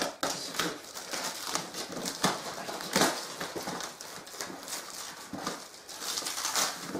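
Cardboard shipping box being handled and opened: irregular scraping, rustling and light knocks of cardboard and packing tape, the loudest about three seconds in.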